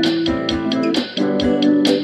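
Background music with sustained chords over a steady beat; the chord changes about a second in.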